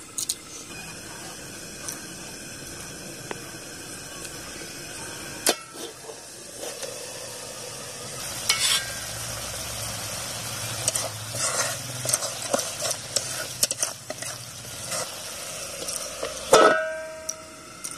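Chicken curry sizzling in a steel kadai, with a metal utensil scraping and clicking against the pan as it is stirred. It ends in one loud ringing metal clang about a second before the end.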